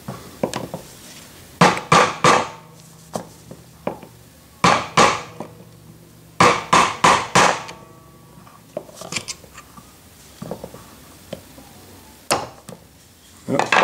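A hammer striking a steel punch to drive the push-pin clip into a polyurethane bump stop. The blows come in quick runs of two to four, with lighter taps between them and a single blow near the end.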